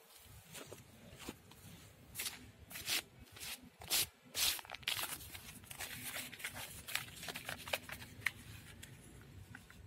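A hand scraping and digging through loose damp soil, with a plastic toy train dragged through the dirt: a run of short scratchy rustles, loudest about four seconds in.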